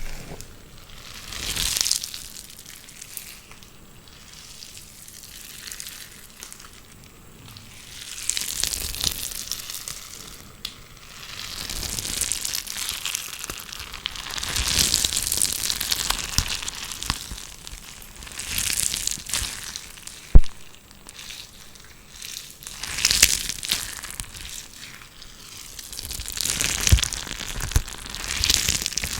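ASMR trigger sounds close to the microphone: crunchy, crinkly noise rising and falling in swells every couple of seconds, with one sharp click about twenty seconds in.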